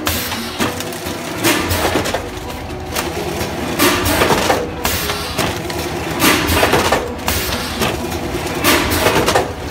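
Automatic fries packaging machine running: a clatter about once a second from its sealing jaws cycling and frozen fries dropping into the bags, over a steady machine hum.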